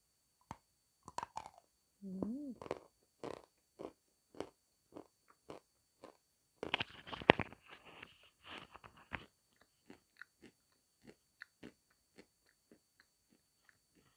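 Crisp crunching of a lump of Sevryukovsky edible chalk being bitten and chewed, with a sharp crackle at each bite. The crunching is densest and loudest about seven to nine seconds in, then thins to scattered small crunches near the end.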